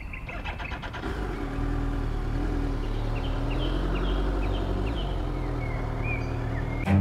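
BMW K1300S motorcycle's inline-four engine getting louder about a second in, then running steadily with small shifts in pitch as the bike rides off. Birds chirp faintly over it.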